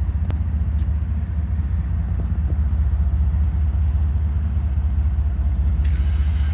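Steady low rumble of an approaching diesel train's locomotives, with a faint click just after the start and a brief higher-pitched hiss near the end.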